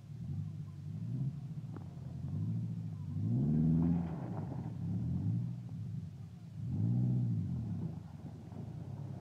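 Toyota Tacoma pickup's engine revving up and dropping back again and again, with the strongest revs a little under four seconds in and at about seven seconds. The truck is straining against a tow strap to pull a stuck truck free.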